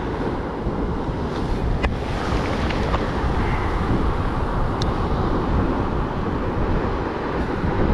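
Wind buffeting the microphone over the wash of surf on a beach, with a wave running up over the sand around the middle, and a couple of faint clicks.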